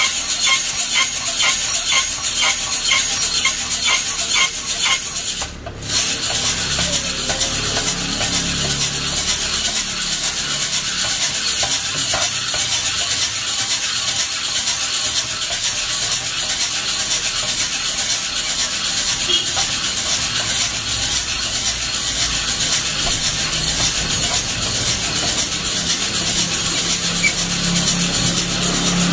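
Coffee beans rattling and rasping as they tumble inside a hand-cranked stainless-steel mesh drum roaster being turned during the roast. For about the first five seconds the rattle comes in a regular shake, two to three strokes a second. After a brief drop it becomes a steady, dense rasp.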